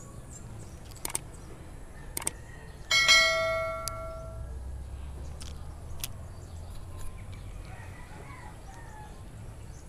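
Two short clicks, then a bright bell-like chime about three seconds in that rings and fades over a second or so: the sound effect of an animated subscribe-button overlay. A faint steady low background hum lies underneath.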